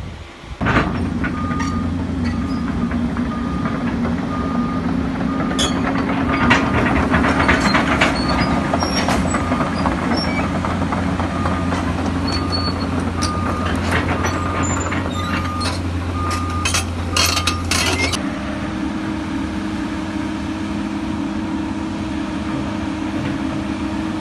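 Tracked excavator's diesel engine running while the machine moves, with its warning alarm beeping in an even series and its steel tracks and parts clanking and rattling. Near the end the beeping and clanking stop and the engine note changes to a steadier tone.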